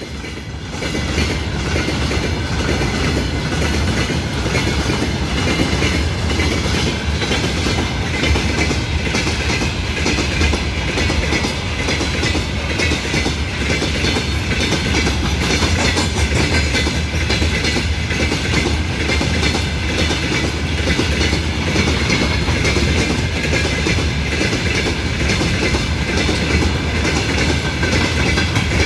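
A train rolling past, its wagon wheels clacking over the rail joints. The sound swells about a second in and then stays loud and steady.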